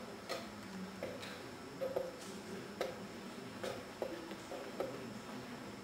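Blitz chess being played: wooden chess pieces are set down hard on a wooden board and the chess clock's buttons are pressed, making a quick, irregular series of sharp clicks and knocks, about two a second.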